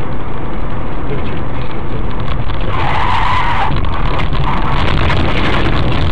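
Car tyres skidding under hard emergency braking: a rough squeal about three seconds in lasting about a second, then a shorter one, over steady road and engine rumble heard from inside the car.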